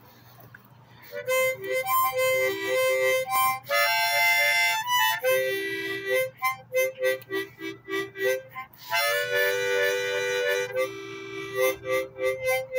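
Harmonica music that starts about a second in: quick alternating notes broken by two longer held chords.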